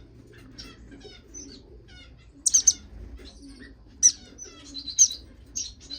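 Small cage finches in a mixed bird room chirping: a steady run of quick, high chirps, with a few louder calls about two and a half, four and five seconds in.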